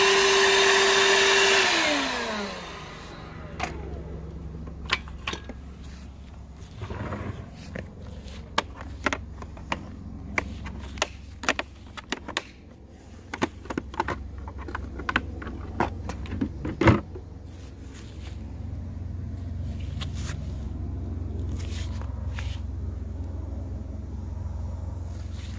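Makita 18V LXT brushless sub-compact circular saw running free with a cordless wet/dry vac drawing through its dust port; about two seconds in they shut off and wind down, the pitch falling. Then a run of plastic clicks and knocks as the vac's lid latches are opened, over a low steady hum.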